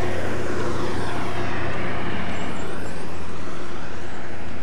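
Steady vehicle noise: an engine hum under a loud, even rushing sound.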